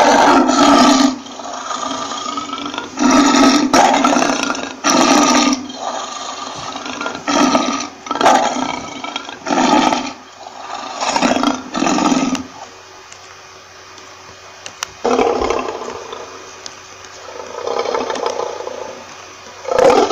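A lion roaring in a bout: a few long, loud roars, then a run of shorter grunting calls about a second apart that ends around halfway through. Softer calls follow, and another loud roar starts right at the end.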